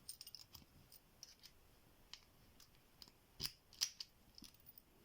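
Small metal clicks and scrapes as a padlock key is worked off its split key ring, with two sharper clicks about three and a half seconds in.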